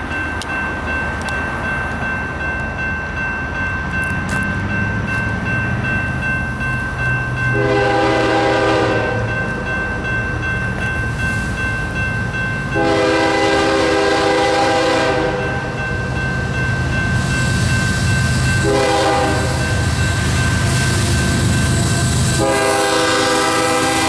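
Diesel freight locomotive's air horn sounding the grade-crossing signal: two long blasts, one short, then a long one that is still going at the end, over the rising rumble of the approaching locomotives. A crossing bell rings steadily underneath.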